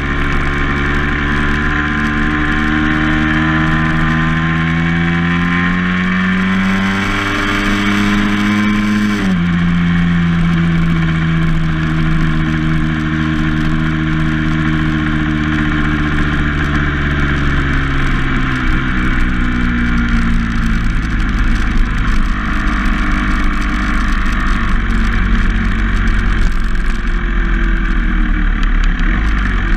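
A vehicle's engine heard on board while driving, rising in pitch for about nine seconds, then dropping suddenly as it shifts up a gear. The pitch then eases down and the engine note fades, leaving a steady rumble of road and wind noise in the second half.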